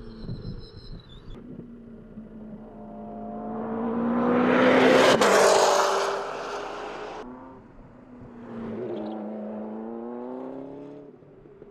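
McLaren MP4-12C GT3 race car's twin-turbo V8 coming up and passing close at speed, loudest about five seconds in, its pitch dropping as it goes by. The engine is heard again more faintly a few seconds later, its note rising and falling.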